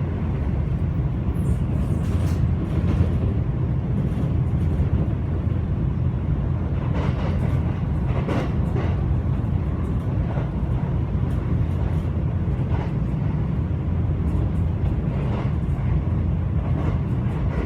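A train running steadily, heard from inside a passenger carriage: a constant low rumble with faint clicks now and then.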